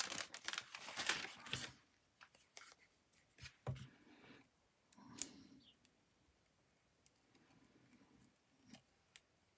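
Scissors snipping through paper in a quick run of cuts for the first second and a half or so, then faint scattered taps and rustles of paper being handled.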